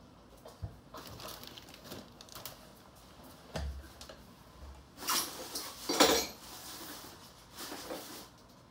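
Handling noise from plastic bags and coils of pneumatic tubing on a desk: rustling, light knocks and small clinks, loudest in a burst about five to six seconds in.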